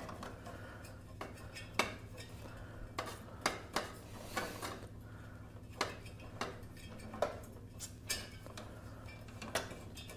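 Irregular metallic clicks and scrapes, about a dozen in all, as a one-pound propane cylinder is turned and screwed into the regulator inlet of a Mr. Heater portable propane heater, knocking against the heater's housing.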